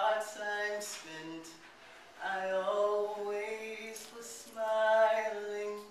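A single voice singing unaccompanied, holding long notes with short breaths between the phrases.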